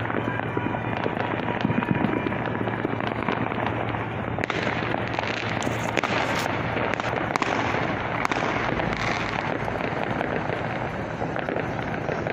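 Fireworks going off all over: a continuous jumble of many overlapping bangs and crackles, with sharper cracks from about four and a half seconds in.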